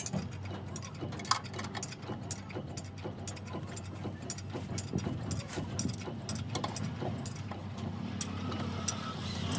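An engine running at a steady idle, with scattered sharp clicks and knocks over it; the sharpest comes about a second in.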